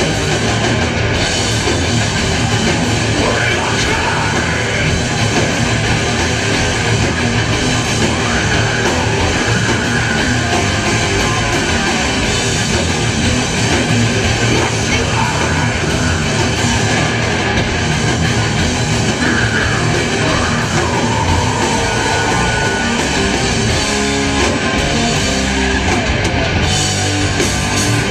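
Heavy metal band playing live and loud: distorted electric guitars, bass and drums in a dense, driving wall of sound. In the last few seconds the riff turns choppy and stop-start.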